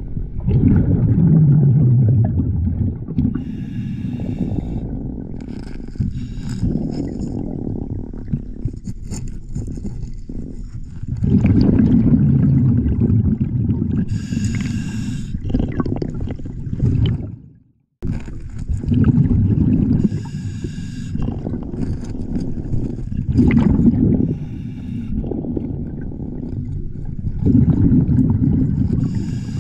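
A scuba diver breathing through a regulator, heard underwater: every few seconds a loud swell of rumbling exhaled bubbles, and between them the hiss of each inhalation. The sound cuts out completely for a moment about 18 seconds in.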